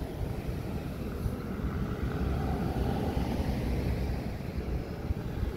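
Cars and pickups driving past one after another at low speed, a steady tyre and engine rumble that swells briefly as one passes, with wind buffeting the microphone.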